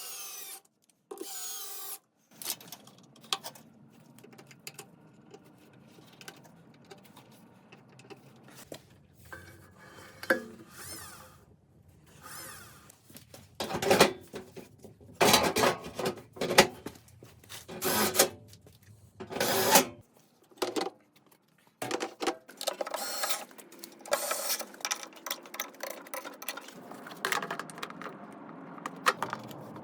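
Workshop repair sounds on a washing machine: a series of irregular clicks, clanks and knocks from tools and metal parts being handled. The sounds come in short segments that cut in and out, with the loudest knocks about halfway through.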